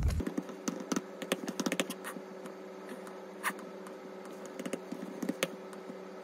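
Typing on an Apple MacBook laptop keyboard: quick, irregular key clicks, densest in the first two seconds and sparser after.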